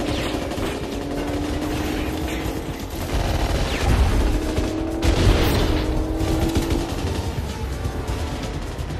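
Rapid automatic gunfire, bullets striking the armoured windscreen and body of a BMW 750iL, with the heaviest hits about four and five seconds in.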